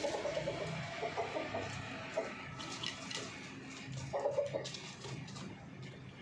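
Desi chickens clucking: short clucks every second or so, with a louder bout about four seconds in.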